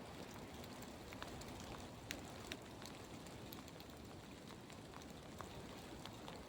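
Faint forest ambience: a soft steady hiss with scattered light ticks.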